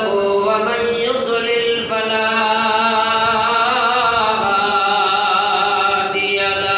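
A male preacher chanting into a microphone in a long, drawn-out melodic voice, holding notes that bend slowly up and down in pitch.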